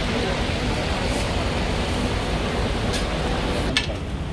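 Steady street traffic noise with a faint engine hum. Near the end come two sharp knocks of a cleaver on a wooden chopping block.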